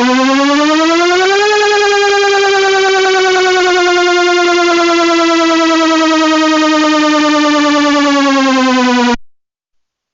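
Electronic siren tone, the "indoor protection" signal: a loud, slightly warbling tone rich in overtones rises for about a second and a half, then slides slowly down in pitch for about eight seconds and cuts off suddenly.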